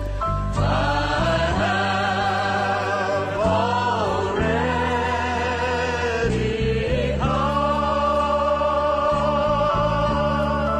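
Gospel choir music: held, wordless choral chords with vibrato over a sustained bass accompaniment, changing chord every couple of seconds.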